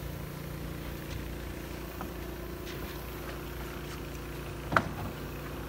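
Steady low engine hum, with one sharp knock about three-quarters of the way through.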